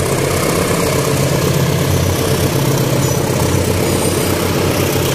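Diesel commuter train passing close by: a loud, steady low engine rumble with wheel and rail noise.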